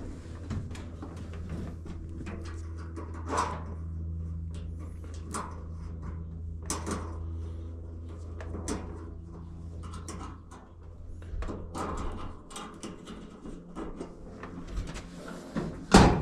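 Clicks, rattles and knocks of washing-machine panels and parts being handled and fitted back together, with a loud knock near the end. A steady low hum runs underneath and stops about ten seconds in.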